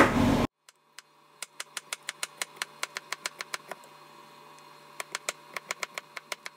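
Kitchen knife chopping zucchini into matchsticks on a plastic cutting board: two quick runs of sharp taps, about five a second, with a pause of over a second between them. A louder sound cuts off abruptly about half a second in.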